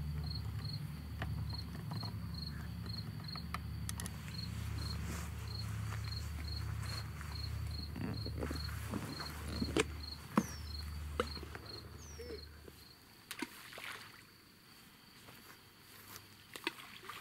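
Cricket chirping steadily in short high pulses, about three a second, over a low hum that stops near the end. A couple of short high whistles come in between.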